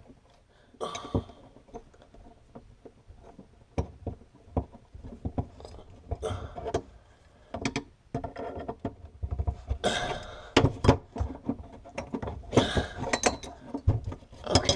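Wrenches clinking and knocking against a brass compression nut and valve body in irregular bursts as the fitting is tightened onto the pipe. The bursts are busiest about two-thirds of the way through.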